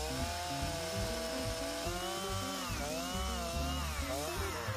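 Chainsaw running under load while crosscutting a fallen konara oak log, its engine pitch sagging and rising as the chain bites into the wood.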